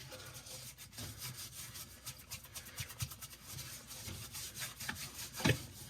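Small scrub brush scrubbing the dishwasher's spray arms and the tub around the heating element, in quick irregular back-and-forth strokes, with one louder knock near the end.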